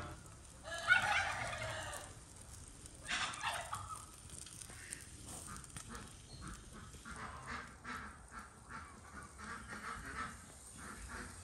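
Farmyard fowl calling: a loud call about a second in, another about three seconds in, then several quieter short calls later on.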